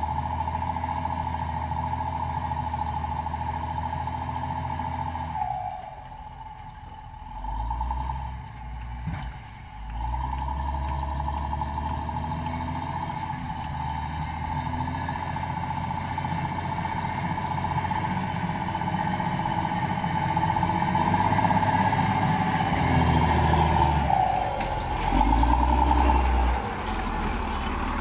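Heavy diesel engine of a motor grader running steadily under load. It dips quieter for a few seconds early on, then grows louder over the last several seconds.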